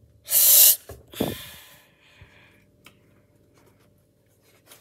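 A person breathing out sharply twice, about a second apart. The first rush of air is short and loud; the second trails off over about a second.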